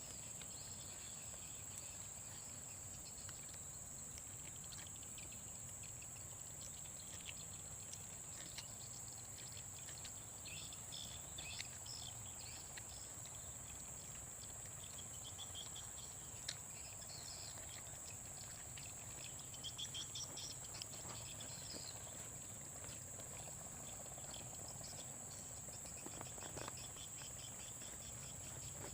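Forest insects keeping up a steady high-pitched drone, with short chirping calls breaking in now and then, in clusters about a third of the way in and again around two-thirds through.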